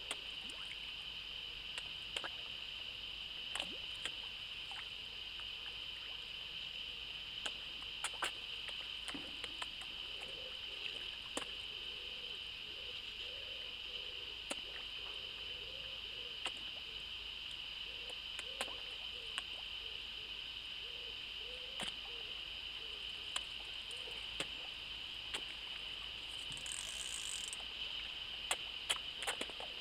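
Carp sucking floating bread off the lake surface, heard as scattered soft clicks and pops, over a steady high-pitched hiss. Through the middle stretch, a bird gives low, repeated hooting calls.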